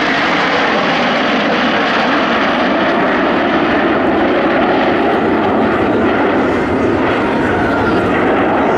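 Jet noise from a six-ship formation of Canadair NF-5 fighters, each with twin General Electric J85 turbojets, flying past in close formation. The sound is a loud, steady rush without breaks.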